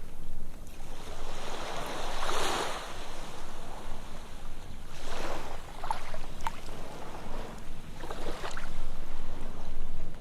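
Ocean surf on a sandy beach: three waves break and wash in, about three seconds apart, over a steady low rumble of the sea.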